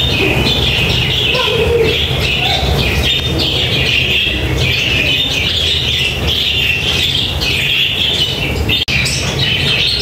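A large flock of budgerigars chattering and squawking together in an aviary, a dense continuous twittering, with a steady low rumble underneath.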